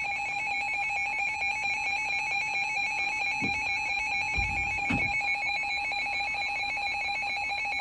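Emergency alert attention tone from a NOAA Weather Radio broadcast: a steady, fast-pulsing electronic alarm tone that stops near the end. It announces a severe thunderstorm warning.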